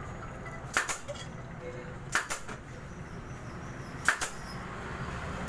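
Pneumatic staple gun firing three times, roughly every one and a half to two seconds, each shot a sharp double snap as it drives staples through a motorcycle seat cover. A steady low hum runs underneath.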